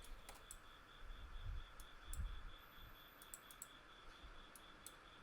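Scattered faint computer mouse clicks, a few close together near the start and more in the middle, over quiet room tone with a faint steady high whine.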